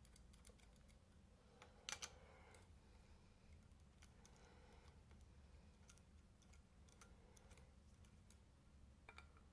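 Faint, scattered light clicks and taps of small hard objects, with a louder sharp double click about two seconds in, over a low steady hum.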